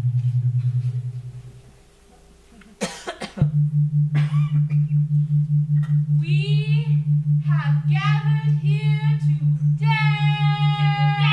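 A low electronic drone throbs several times a second, fades away, and returns after a brief clatter about three seconds in. Over it, from about six seconds in, a performer's wordless voice sounds gliding cries and ends on a long, steady high note.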